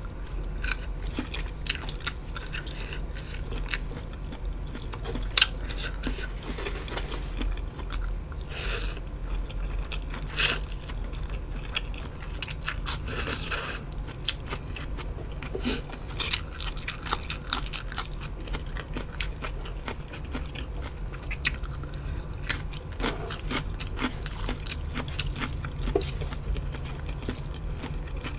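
Close-up eating sounds: steady chewing with many crisp crunches and wet mouth clicks, over a low steady hum.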